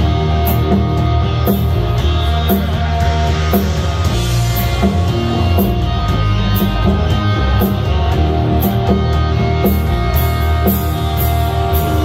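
Live rock band playing loudly: electric guitars over a drum kit, with cymbals struck steadily through it.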